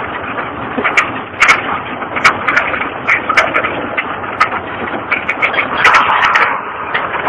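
Truck under way, heard from inside its cab: a steady running rumble with frequent sharp rattles and knocks, several a second, from the cab jolting along a rough road.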